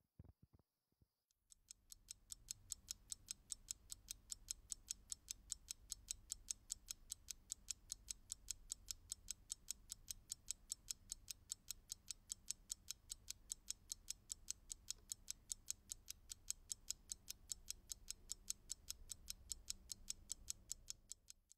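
Steady ticking like a clock, about four sharp ticks a second, starting about a second and a half in, over a faint low hum.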